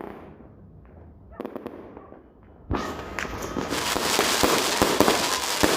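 New Year fireworks: a few scattered sharp cracks, then about two and a half seconds in a dense, continuous crackling of many fireworks starts suddenly and grows louder.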